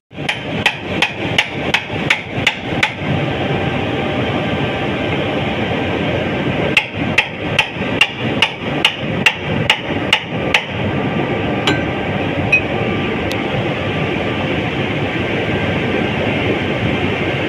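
Hammer blows on metal at the housing of a roto packer's jammed impeller, struck to work it loose. The blows come in two quick runs of about three a second, then a few single strikes, each ringing briefly, over steady background noise.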